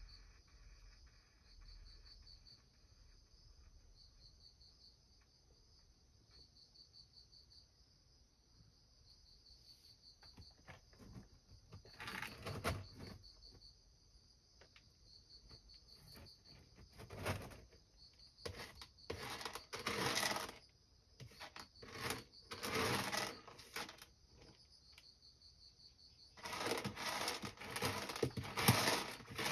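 A cat digging in pellet litter in a plastic litter box, covering up after urinating. The pellets rustle and scrape in several bursts of scratching, which start about twelve seconds in and grow longer and louder near the end.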